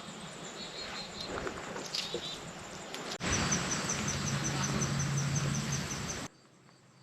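Outdoor ambience with wind-like noise; from about three seconds in, a high insect chirp repeats evenly about five or six times a second over a steady low hum, and it all cuts off suddenly near the end.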